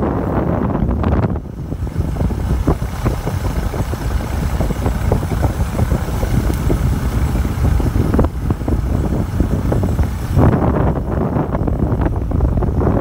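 Wind buffeting the microphone of a moving road vehicle over a steady low rumble. It turns choppier and gustier about a second in, and fuller again near the end.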